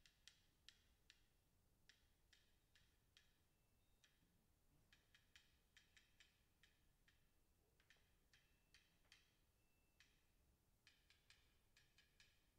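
Very faint, dry, high clicking taps of light percussion strokes, in short phrases of about four to eight taps roughly three a second, with pauses between.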